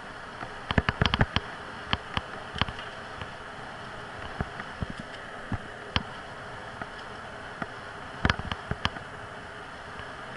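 Bicycle riding on an asphalt path: steady tyre and wind noise, broken by irregular sharp clicks and knocks from the bike, in a cluster about a second in, a few single ones through the middle and another cluster near the end.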